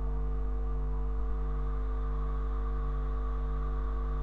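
Steady electrical mains hum: a low, unchanging drone with fainter steady tones stacked above it and a light hiss.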